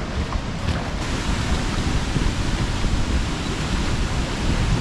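Steady rushing roar of a large waterfall, with wind buffeting the microphone.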